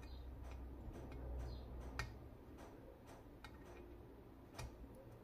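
Faint, irregular light metallic clicks and ticks of small screws and a screwdriver being fitted on an Edelbrock 1406 carburetor body, with one sharper click about two seconds in.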